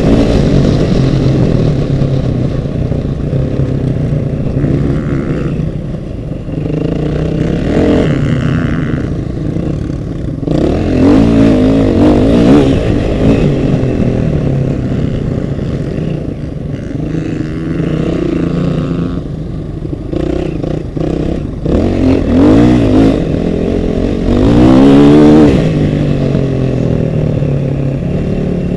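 Off-road vehicle engine running hard and revving repeatedly, its pitch rising and falling, loudest about three-quarters of the way through.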